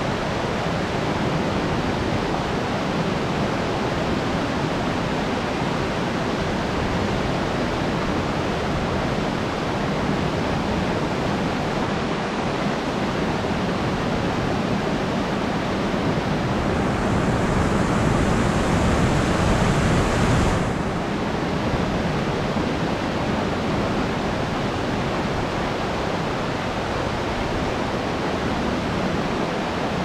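River water pouring over a low-head dam's spillway: a steady, even rush of falling whitewater. A little past the middle a brighter hiss swells in for a few seconds and then cuts off suddenly.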